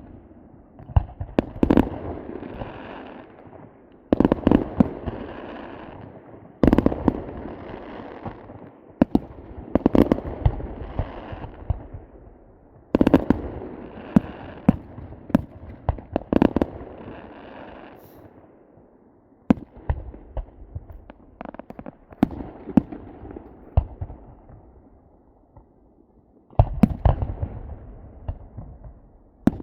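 Aerial fireworks going off in clusters: sharp bangs and crackles every few seconds, each volley echoing and rumbling away, with a quieter stretch of scattered pops before a fresh volley near the end.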